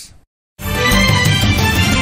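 A brief gap of silence, then the news programme's theme music comes in about half a second in and carries on at full level, with a strong bass under it.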